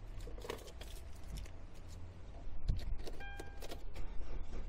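Clicks and rattles of a car key and controls being handled inside the Hyundai iMAX's cabin. A short electronic beep from the dashboard comes about three seconds in. Under it all is a low steady hum that gets louder a little past halfway.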